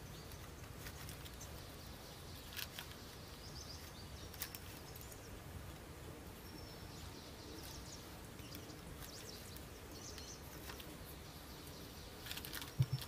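Faint outdoor background with a steady low rumble and soft, scattered bird chirps. Light clicks come now and then, and a short cluster of sharper taps near the end is the loudest sound.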